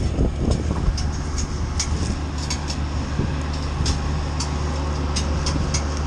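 Titan wood chipper and Kioti subcompact tractor running steadily with a low hum, with irregular sharp cracks and clicks as pine branches are chipped.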